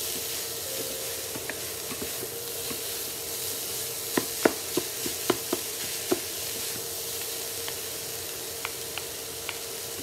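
Riced cauliflower fried rice sizzling in a nonstick frying pan as it is tossed with two wooden spatulas. About four seconds in comes a quick run of sharp clicks as the spatulas knock against the pan.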